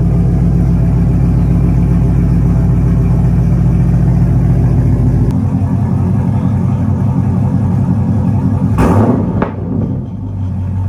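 Holden VE SS wagon's 6.0-litre V8 idling through a freshly fitted 3-inch stainless straight-piped exhaust with the mufflers deleted: a loud, deep, steady rumble. A short louder burst comes about nine seconds in, then it settles back to idle.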